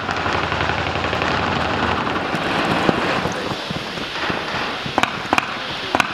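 Rifles firing blank rounds in a dense crackle of rapid shots that thins out after a few seconds, then a few separate sharp cracks near the end.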